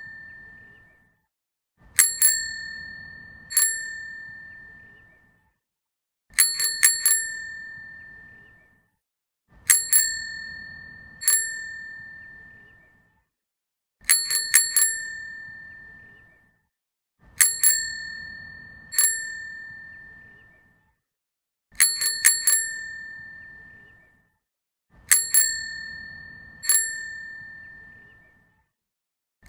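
A bicycle bell rung repeatedly in the same pattern: a quick run of three or four dings, one more ding about a second and a half later, then a pause of a couple of seconds before the next group, about seven groups in all. Each ding rings out and fades.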